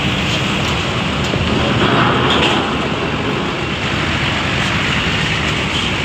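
Coach buses driving slowly past, a steady rumble of diesel engines and road noise.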